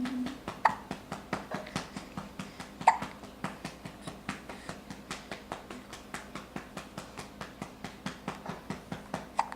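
Steady, even patting on a baby's back to bring up a burp, about three pats a second, with a few short sounds from the baby, the loudest about three seconds in.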